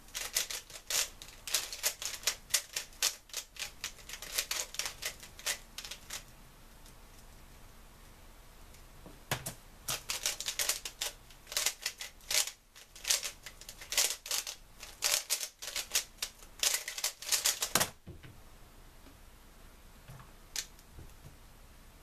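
3x3 speedcube being turned fast by hand, with plastic layers clicking and clacking in quick rattling runs. A burst of about six seconds is the scramble. After a pause, a second run of about eight seconds is a timed solve, and it ends in a thump as the hands hit the laptop's spacebar to stop the timer.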